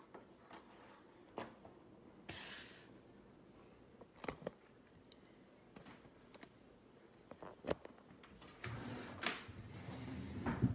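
Light handling noise as foil card packs and plastic toy-brick stands are set out on a table: scattered faint clicks and knocks, a brief rustle of pack wrappers, and a denser, louder stretch of handling near the end.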